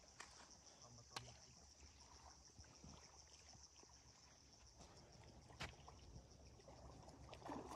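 Near silence: faint trickling water, with two small sharp clicks, about a second in and just past halfway.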